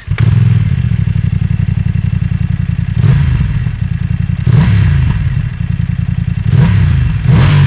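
BMW F900 XR's 895 cc parallel-twin engine running as the motorcycle is ridden. The revs rise three times, about three, four and a half, and six and a half seconds in.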